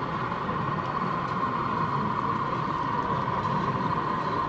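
Steady even hum with a constant whir, typical of a busy exhibition hall at a model train show. It does not rise or fall.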